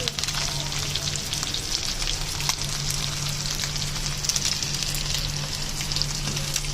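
Fish frying in hot oil: a steady sizzle with frequent small crackles and pops, over a steady low hum.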